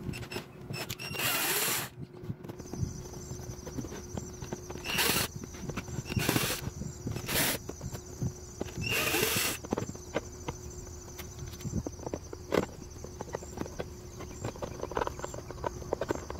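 Cordless drill-driver whirring in about five short bursts, backing screws out of the plastic base of an electric sprayer, with small clicks and knocks of the plastic being handled in between.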